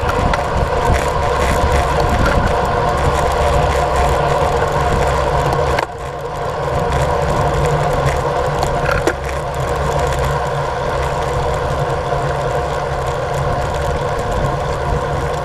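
Steady rush of wind over the camera microphone and the hum of road-bike tyres on asphalt at group-ride speed. The noise drops suddenly about six seconds in as the pace slows on a slight climb.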